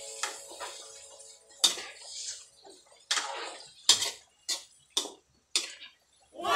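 A metal stirring utensil scraping and knocking against a steel wok while pork chunks are turned over. There are about seven separate clinks and scrapes, unevenly spaced, with music fading out at the start.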